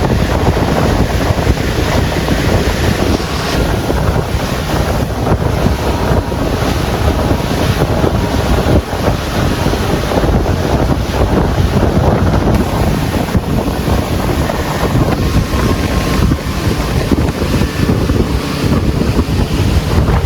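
Steady wind rushing over the microphone aboard a moving river tour boat, with the boat's water and motor noise underneath.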